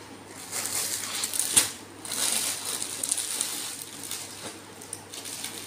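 Plastic packaging crinkling and cloth rustling as a packed suit is handled and pulled out, in irregular crackles with one sharp, loudest crackle about a second and a half in, then smaller ones trailing off.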